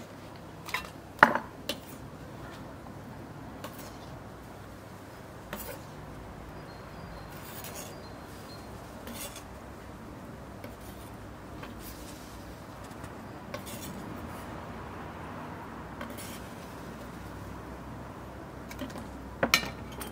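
Chef's knife tapping and scraping on a wooden cutting board and clinking against bowls as diced tomato is moved into a bowl. The knocks are scattered over a steady faint background, and the loudest come about a second in and again near the end.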